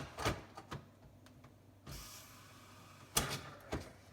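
Hard plastic clicks and knocks with a scraping slide in between, as a refrigerator water filter cartridge is pushed into its plastic housing.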